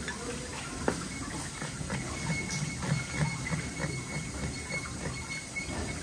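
Metal spoon scraping the blood out along the backbone of a split remora on a cutting board: a run of short, wet scrapes and small clicks, a few a second.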